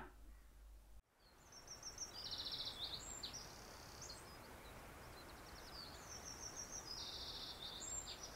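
Faint outdoor nature ambience that starts after a cut about a second in: a steady soft hiss with small birds chirping in short repeated trills, in two clusters a few seconds apart.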